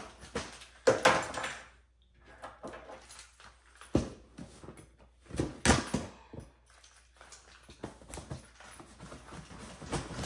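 Cardboard shipping box being pried open by hand: irregular bursts of scraping and rustling cardboard, the loudest about a second in, with a sharp knock about four seconds in.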